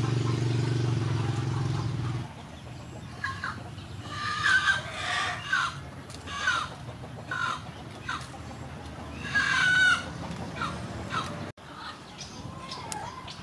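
Domestic chickens clucking and calling: a string of short calls from about three seconds in, with a longer, louder call near ten seconds. A low steady hum sounds for the first two seconds and then stops.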